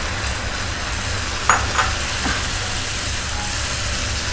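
Curd sizzling in hot oil in a frying pan, with fried ginger, garlic, green chilli and cashew pieces, as it is stirred with a silicone spatula: the sizzle of a wet ingredient just added to hot fat. Two light knocks about a second and a half in.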